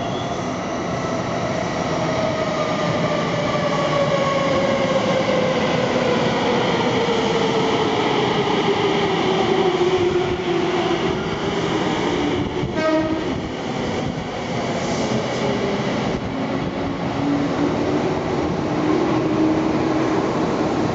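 Tsukuba Express TX-2000 series electric train braking into the station: its motor whine falls steadily in pitch as it slows, over rail and wheel rumble. About thirteen seconds in comes a short horn blast from a Tobu 20000 series train.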